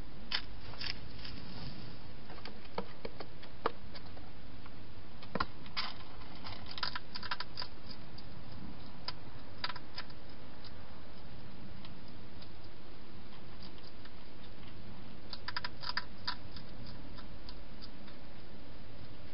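Wild hedgehog feeding and moving about inside a plastic feeding box: scattered small clicks and crunches, some in quick short clusters, over a steady hiss.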